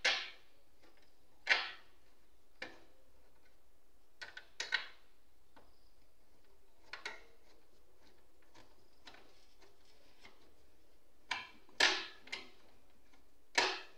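Irregular clicks and light knocks, about ten in all with a few sharper ones, of metal and plastic parts being handled as a CPU fan and heatsink are worked loose inside a desktop computer's steel case.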